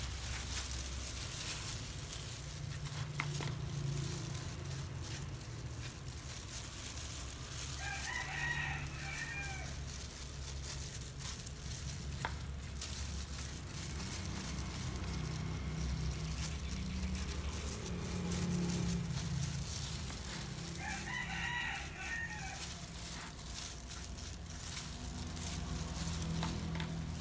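A rooster crowing twice, each crow lasting about a second and a half, once about a third of the way in and again about three quarters of the way in, over a steady low hum.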